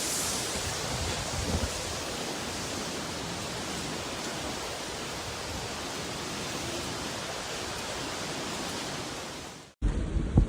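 Steady, dense rushing noise of a hurricane's wind and water, even throughout and cutting off suddenly near the end. After the cut, gusty wind buffets the microphone.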